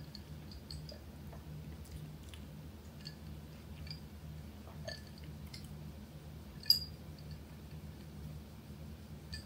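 A person sipping and swallowing a drink, faint mouth and throat sounds over a low steady hum, with one sharper click a little past two thirds of the way through.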